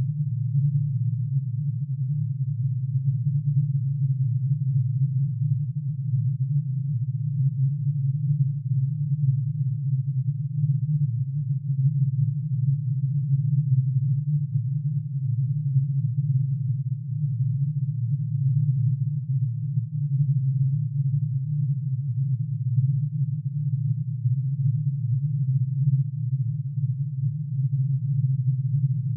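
Synthesized drone of plutonium's atomic emission spectrum: many sine tones, one for each spectral line, shifted down to audible pitch and sounding together. It is a steady low hum, all packed between about 100 and 200 Hz, with a fast, uneven flutter in loudness.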